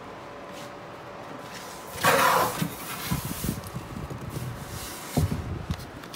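Packaged textiles being handled and shifted inside an open cardboard box: a loud rustle about two seconds in, then soft bumps and knocks against the cardboard, with a sharper knock about five seconds in.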